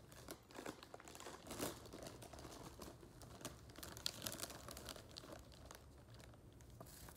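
Faint, scattered crinkling and rustling: a toddler's hand in a plastic chip bag and the pages of a picture book being handled and turned.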